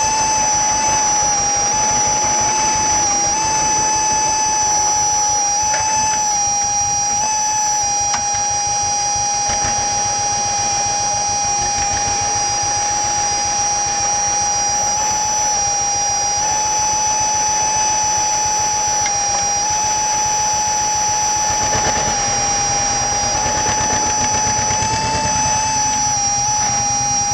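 John Deere 50's two-cylinder engine running steadily as the tractor drives around, with a fast, even low pulsing, and a steady high whine over it throughout.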